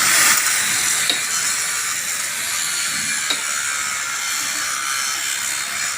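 Stick (arc) welding: the electric arc is struck suddenly and then burns with a steady crackling hiss, with a couple of faint pops.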